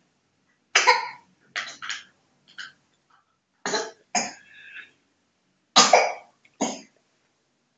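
A person coughing repeatedly: short, harsh coughs, most of them in pairs, with pauses between the groups.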